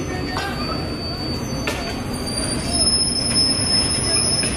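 Freight train of flat wagons loaded with rails, rumbling low, with a couple of short clanks early. About halfway through, a steady high-pitched wheel squeal starts and holds until near the end.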